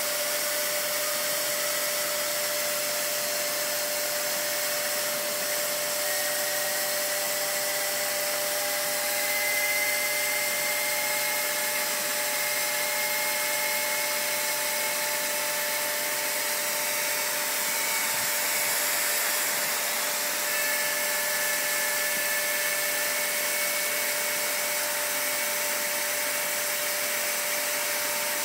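Pressure washer jet spraying a spinning push-bike wheel: a loud, steady hiss with a constant hum, and a whine that rises slowly in pitch over the first ten or so seconds as the wheel spins up, then holds high.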